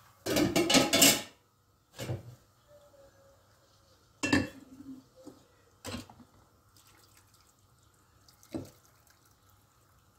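Stainless-steel cooking bowl clattering against the stove and its lid, a burst of metal clanks lasting about a second, then single knocks every couple of seconds as the hot bowl is handled and set down.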